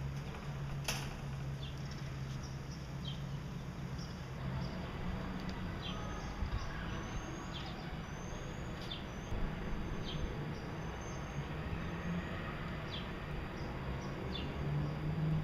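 Gouldian finches calling: short high chirps every second or so, with a few short rising whistled notes near the middle, over a steady low hum. A sharp click about a second in.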